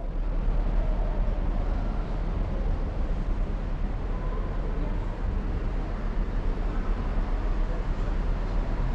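Steady low rumble with a faint hiss: the background ambience of a large indoor prayer hall.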